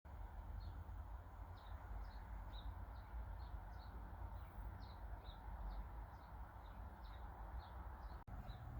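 A small bird chirping over and over, short high chirps about every half second to a second, over a low steady rumble. A single sharp click comes near the end.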